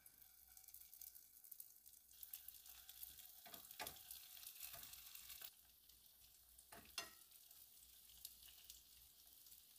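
Faint sizzling of marinated chicken wings frying skin side down in oil in a nonstick pan over low heat, with a few soft knocks as tongs set more wings down.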